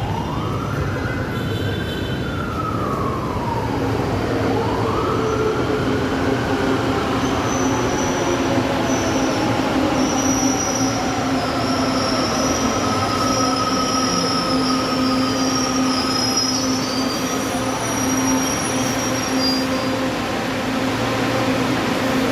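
LRT Line 2 electric train running through a station without stopping: steady wheel-on-rail noise with squeal, and a motor whine that glides up and down twice in the first several seconds over a steady low hum.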